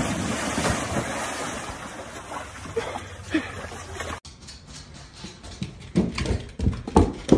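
Dogs leaping into a swimming pool with a big splash, then water churning and slapping as they swim, fading over a few seconds. After a cut, a few sharp thumps, the loudest about six and seven seconds in.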